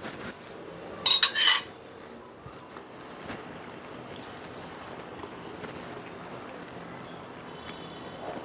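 A quick run of metal clinks about a second in, a spoon knocking against the pan, then a wooden spatula stirring thick karamcha pickle in the kadai with a low, steady sizzle.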